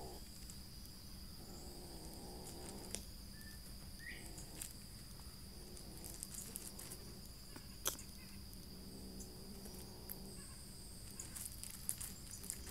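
Insects droning with one steady high-pitched tone, with a few faint clicks and a brief chirp about four seconds in.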